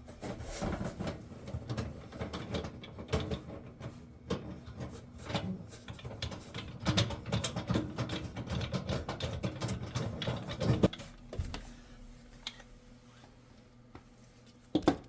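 Rapid, irregular metallic clicking and rattling as a gas oven igniter is fitted and screwed into its mount. It stops about eleven seconds in, and a single knock comes near the end.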